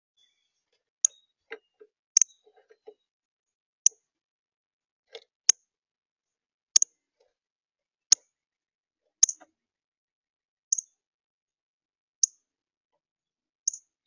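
Northern cardinal giving sharp, high chip notes, about one every second and a half, with a few faint rustles from the seed feeder among the first ones.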